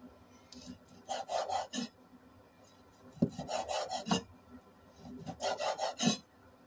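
A cleaver cutting raw chicken on a wooden chopping board. There are three quick runs of rasping strokes, blade through meat and onto the board, each under a second long and about two seconds apart.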